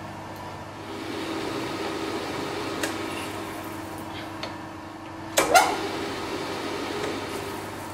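Steady electrical hum of a rotary phase converter, with a louder whirring noise coming in about a second in. Two sharp metallic clanks follow in quick succession just past the middle.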